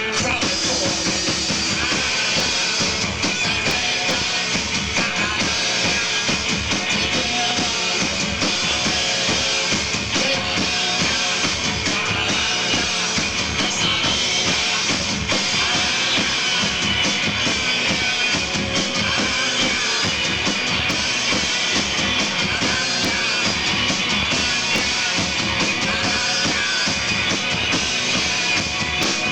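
Live rock band playing a song at full volume: drum kit keeping a steady beat under guitars, with no break.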